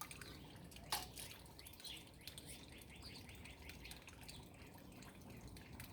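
Faint bird chirps in the background, with a single sharp click about a second in.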